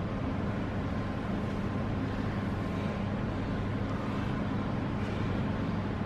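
Steady low hum with hiss. There are no distinct knocks or thuds.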